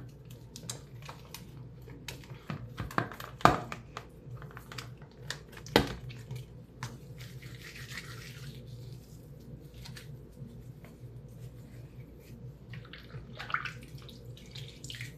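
Washcloth scrubbing at bath time: scratchy rubbing and small wet sounds, with two sharp knocks about three and a half and six seconds in.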